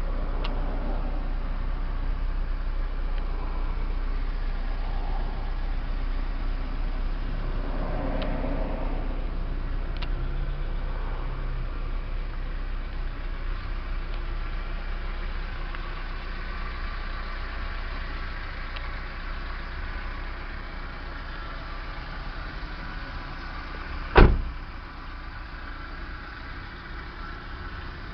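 Nissan Datsun pickup's KA20DE four-cylinder engine idling steadily with a low hum. About 24 seconds in, a car door shuts with one loud slam.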